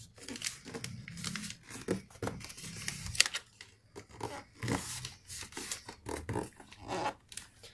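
A square of origami paper being folded and creased by hand: irregular rustling and crinkling, with fingers pressing and sliding along the folds.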